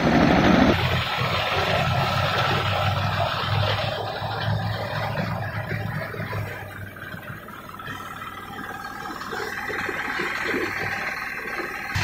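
Rice thresher running, driven by its small stationary engine, with a steady engine drone and the threshing drum working as rice stalks are fed in. The sound gets quieter around the middle and comes back up near the end.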